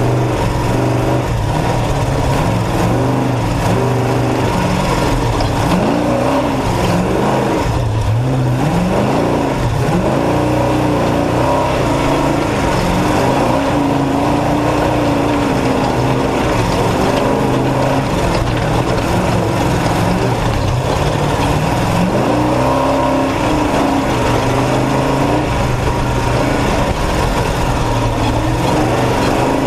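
Off-road race truck's engine running hard, its pitch rising and falling again and again as it revs up and backs off, with a steady whine throughout.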